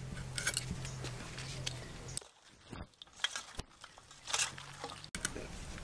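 Short crunchy scrapes as scales are scraped off small bata fish against an iron boti blade. After a cut, a few sharp snaps and clicks as cauliflower florets are broken apart into a steel bowl.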